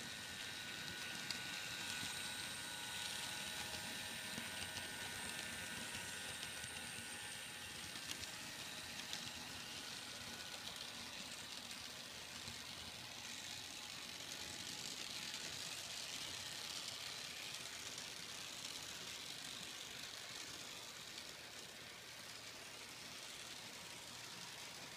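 N scale model locomotive running along its track: a faint, thin high-pitched motor whine with occasional light clicks, over a steady hiss. The whine fades about halfway through as the train moves away.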